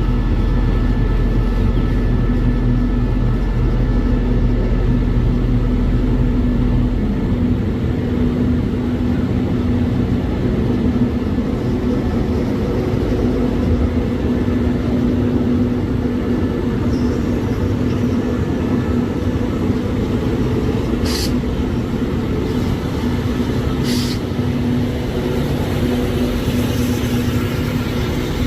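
Diesel trains running through the station with a steady engine hum and low rumble; the deepest part of the rumble eases off about seven seconds in. Two short sharp clicks sound about three seconds apart near the end.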